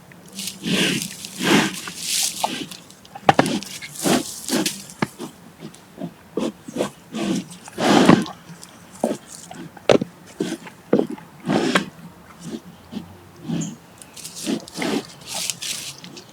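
Brown bear biting and chewing on a hard root, with heavy breathing through mouth and nose. Irregular crunches and sharp clicks of teeth come between the breaths.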